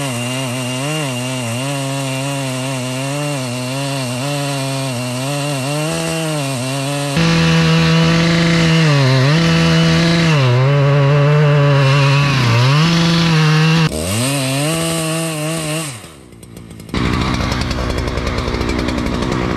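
Chainsaw cutting wood, its engine pitch dipping and recovering over and over as the chain bogs in the cut and picks up again. About a third of the way in it turns abruptly louder. Near the end it drops away briefly and is followed by a rougher rushing noise.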